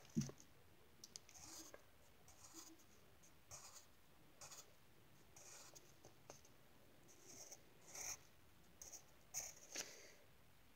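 Pencil scratching on lined notebook paper in short, faint strokes, roughly one a second, as lines are drawn. A single low thump just after the start.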